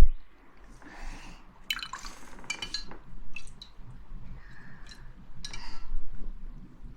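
Close-miked liquid sounds: scattered soft drips and small wet swishes with a few light clinks, the busiest about two seconds in and again near the end.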